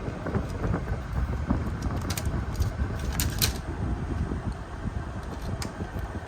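National/Panasonic room air conditioner running: a steady low rumble and rush of air, with scattered light clicks.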